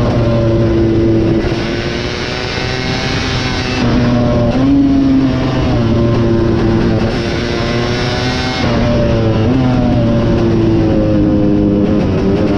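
KTM 250 SX two-stroke motocross bike engine revving hard under race load. Its pitch climbs, then drops sharply several times as it shifts or backs off, and climbs again.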